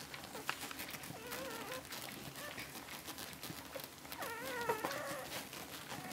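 Eleven-day-old cocker spaniel puppies whining while they nurse. There are two wavering squeals: a short one about a second in and a louder one around four seconds in.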